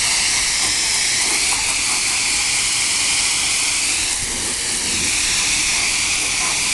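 Steady hiss of a water spray rinsing foaming coil cleaner off a rooftop unit's finned condenser coil.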